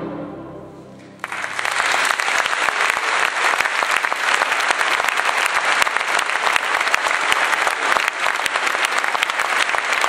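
An orchestra's final notes die away, and about a second in an audience starts applauding: dense, steady clapping.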